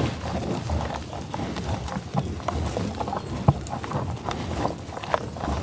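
American bison moving close by in tall grass: irregular soft clicks and rustles over a low rumble, with one sharp knock about three and a half seconds in.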